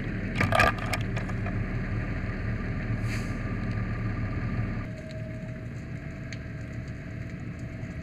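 Fire engine's engine running as the truck pulls up, a steady low rumble that drops about five seconds in. There is a short clatter about half a second in and a brief hiss near the three-second mark.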